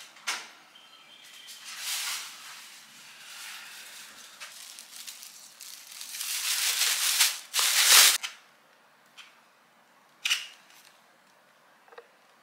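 Plastic takeaway bag rustling and crinkling in irregular bursts as it is handled and untied, loudest about six to eight seconds in, followed by a few short light clicks.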